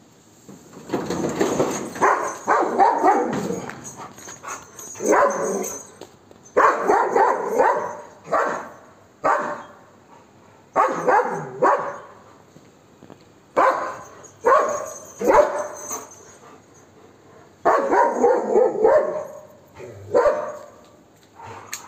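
Golden retriever barking aggressively in repeated bouts of several barks each, with short pauses between bouts, aimed at monkeys to drive them off.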